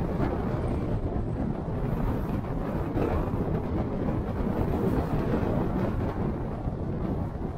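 Steady low rumble of a car driving: tyre and wind noise, with no engine note or other distinct sound standing out.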